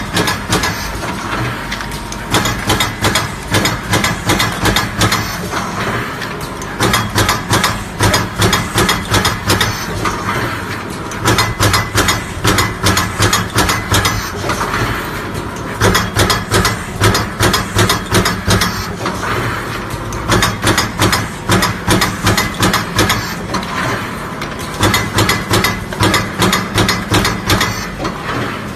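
Automatic card punching machine running: runs of rhythmic mechanical strokes, about two or three a second, over a steady motor hum, each run pausing briefly every few seconds as the next card sheet is fed.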